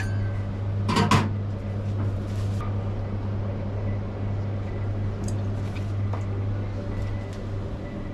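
A steady low electrical hum from kitchen equipment, with two sharp knocks close together about a second in and a few faint clicks later.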